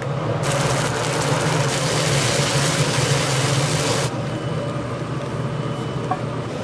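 Kitchen noise: a steady low machine hum, with a loud even hiss from about half a second in until about four seconds in.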